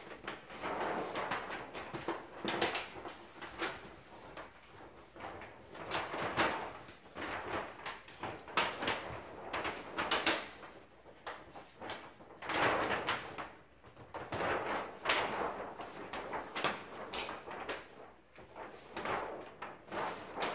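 Large sheet of self-adhesive wallpaper and its backing paper rustling and crinkling as it is handled and pressed onto a ceiling, in repeated swells of a second or two.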